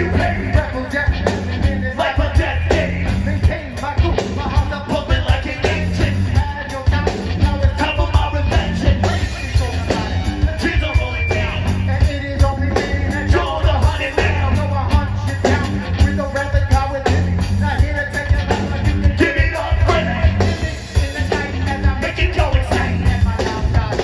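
Live ska band playing loud and amplified, with drums, electric guitar and bass under a singer on the microphone.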